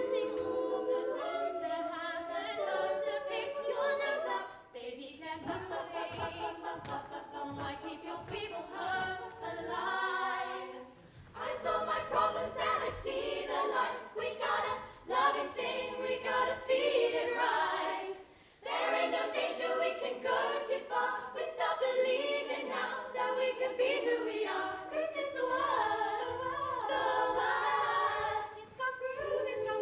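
All-female youth a cappella group singing live in close harmony, several voice parts moving together, over short percussive clicks that keep a beat. The singing breaks off briefly a few times, about 4, 11 and 18 seconds in.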